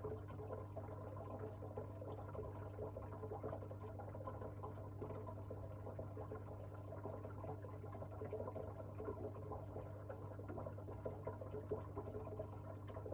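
Faint steady trickle of moving water in an aquarium, over a constant low electrical hum.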